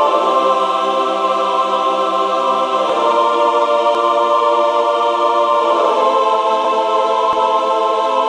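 Background music: slow held chords that change about three seconds in and again near six seconds.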